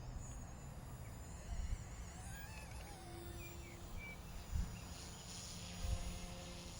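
Wind buffeting the microphone outdoors, a gusty low rumble, with a few faint high chirps in the middle.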